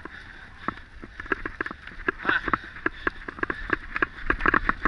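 Mountain bike rattling and clattering over a bumpy forest trail: quick, irregular clicks and knocks, several a second, coming thicker toward the end.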